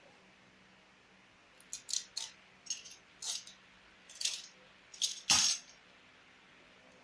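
Objects being handled during packing: a scattered run of short clicks, clinks and rustles, starting after about a second and a half, the loudest near the end.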